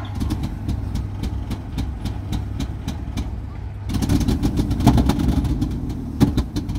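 Military half-track's engine sputtering unevenly on its first start, with regular sharp pops about three times a second over a low hum. It gets louder from about four seconds in, with one stronger pop just after six seconds.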